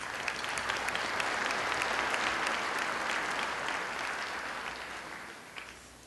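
Audience applauding: a few scattered claps swell into full applause within the first two seconds, then it gradually dies away near the end.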